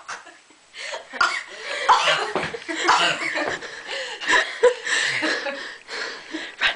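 Girls laughing and coughing in short, irregular bursts, with a few sharp knocks among them.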